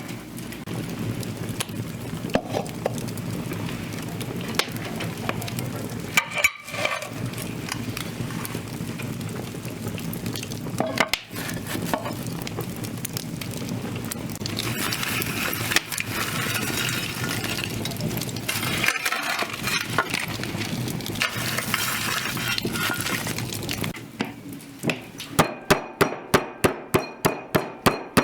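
Cooking sounds: a steady hiss with scattered clinks and scrapes of cookware. Near the end comes a fast, even run of ringing strikes, about five a second.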